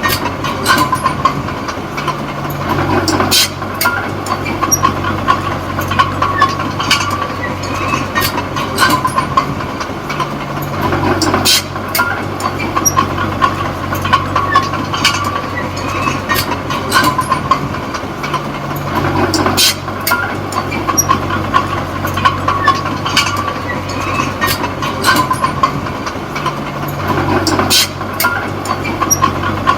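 Diesel engine of a Komatsu D20P small crawler bulldozer running under load, with clanking steel tracks and a steady whine. The engine note changes in a regular cycle about every eight seconds as the dozer pushes soil and backs up.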